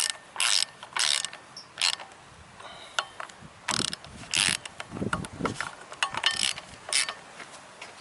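Socket ratchet clicking in repeated short back-swing strokes as flywheel bolts are tightened down toward flush, with a short pause partway through.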